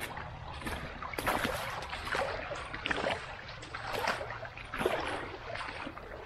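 Footsteps through dry grass and brush, about one step a second, over a steady low rumble on the microphone.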